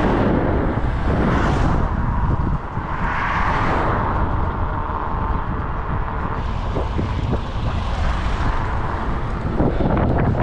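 Wind buffeting the microphone of a camera on a moving bicycle, mixed with road noise, with a louder swell of passing road noise about three seconds in.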